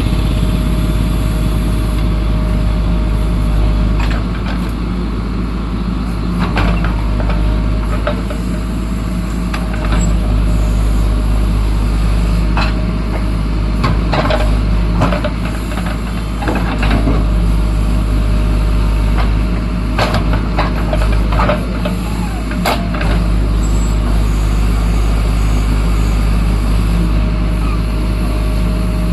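JCB backhoe loader's diesel engine running steadily under work, with a steady whine over the low drone and occasional short knocks and clanks scattered through.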